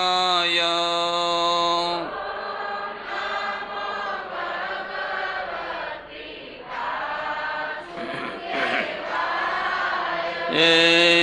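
Call-and-response mantra chanting: a lead male voice holds a long chanted note into a microphone, then a group of voices answers together for about eight seconds. The lead voice comes back strongly near the end.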